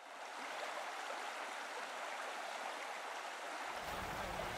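Steady water noise, like a stream or lapping water, fading in at the start. A low rumble joins it near the end.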